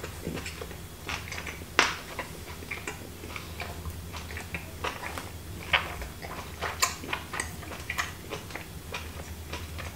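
Close-up mouth sounds of a man chewing grilled steak: a string of irregular wet clicks and smacks, a few louder ones about two, six and seven seconds in.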